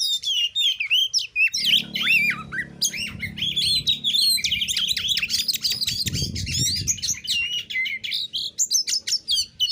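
Oriental magpie-robin (kacer) singing a fast, unbroken run of varied, sliding whistles and chatter in the 'narung' style, packed with mimicked phrases. A low steady hum sits underneath from about a second and a half in until about four seconds in.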